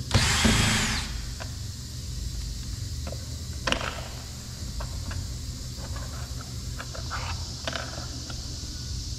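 A short loud burst of rushing noise in the first second, then scattered light clicks and taps of a screwdriver working a screw out of a car door's interior trim.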